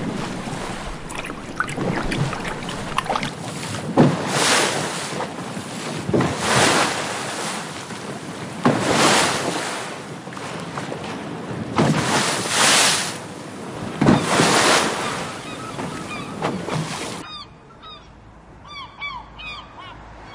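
Ocean surf: an even rushing wash of waves that swells every two to three seconds and cuts off abruptly near the end. It is followed by a few short high chirps.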